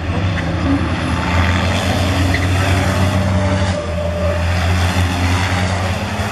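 Racing trucks' turbodiesel engines running at speed, a steady deep engine drone from several trucks under broad track noise.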